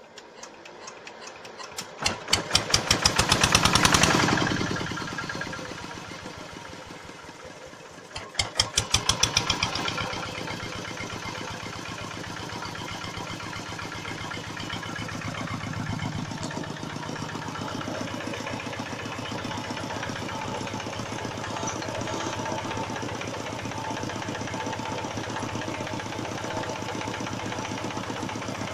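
A single-cylinder stationary engine with a heavy flywheel being hand-cranked. The first cranking swells to a loud run of beats and then dies away without catching. About eight seconds in it is cranked again, catches and settles into steady running.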